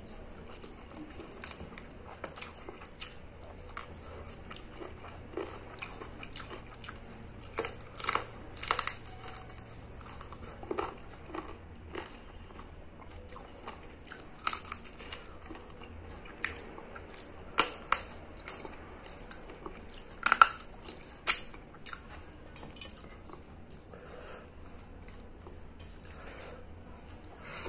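Close-up eating sounds of a person eating rice and boiled chicken by hand: chewing and wet mouth smacks, with scattered sharp clicks, the loudest about 8, 18 and 20 seconds in.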